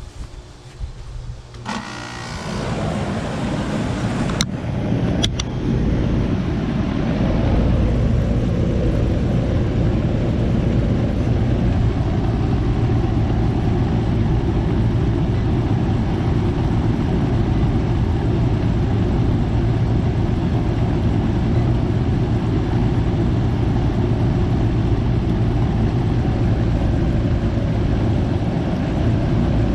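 Goodman air-conditioner condensing unit starting up on its newly replaced 45/5 MFD dual run capacitor: the compressor kicks on about two seconds in and the condenser fan spins up. Two sharp clicks come a few seconds later, then the unit settles into a steady loud running hum.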